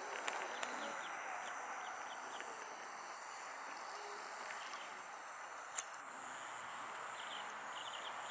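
Insects trilling in high-pitched stretches that come and go over a soft steady hiss, with a few short chirps near the end and a single sharp click about six seconds in.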